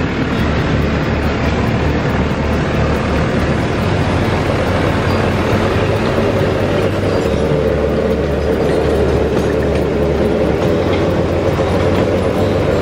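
New Holland T5 tractor's diesel engine running loud and steady as the tractor drives close past and away. The engine note shifts about halfway through.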